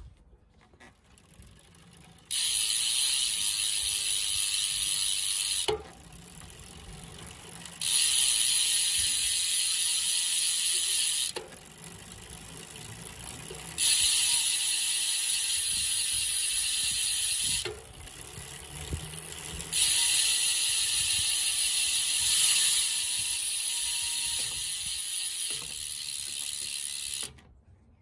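Powerway R13 rear hub freewheeling: its pawl freehub gives a loud, fast, high-pitched ratcheting buzz as the wheel coasts. This comes in four spells, parted by quieter stretches while the crank is turned by hand. The buzz is rather coarse, not a refined tone.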